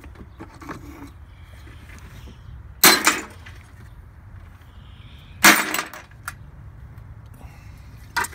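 Two loud clattering impacts about two and a half seconds apart, then a short sharp click near the end, over a low steady hum.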